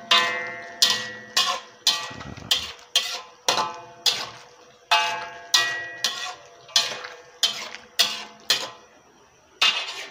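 A metal spatula and ladle knocking against a metal wok while stirring, each knock a sharp clank that rings on briefly, about two a second, with a short pause near the end.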